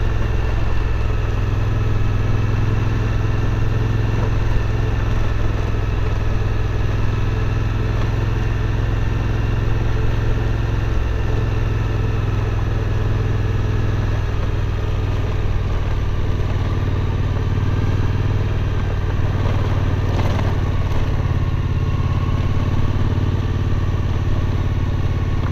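Suzuki V-Strom 1050's V-twin engine running at a steady note while the motorcycle is ridden.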